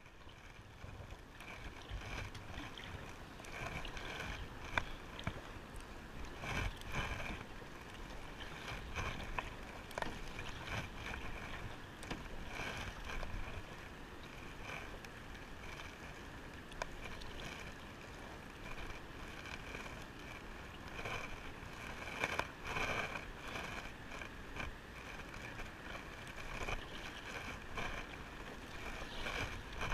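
Kayak paddle dipping into river water: soft, uneven splashes and tiny patters of water every second or so, over a steady outdoor wash.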